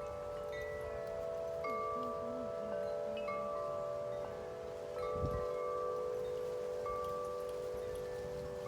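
Wind chimes ringing in gusty wind: many long, overlapping tones struck again and again, over a low rumble of wind that picks up about five seconds in.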